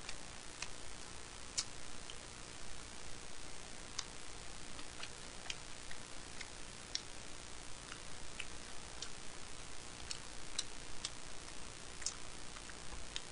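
Light, irregular clicks of metal chopsticks tapping plastic takeout trays and sauce cups while picking up food, over a steady faint hiss.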